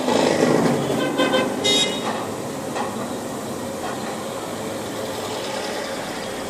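Village street traffic: a vehicle passes close with a brief horn toot about one and a half to two seconds in, then a steady traffic din.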